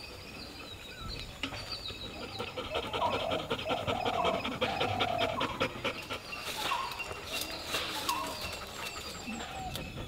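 A dog panting in quick, even breaths.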